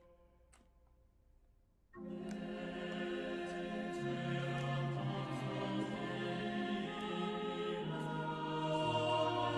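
Background music: after about two seconds of near quiet with a few faint clicks, sustained choir-like music with held chords starts abruptly and plays on.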